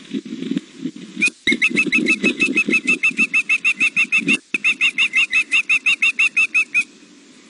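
Juvenile osprey calling: a rapid run of high, piping chirps, about seven or eight a second, starting about a second in, breaking briefly midway and stopping near the end. This is the young bird's food calling, begging to be fed.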